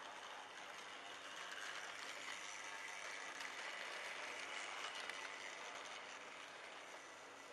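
Model railway locomotives running along the track, with the whir of their small electric motors and the light clatter of wheels over rail joints. It grows louder for a few seconds as a train passes close by.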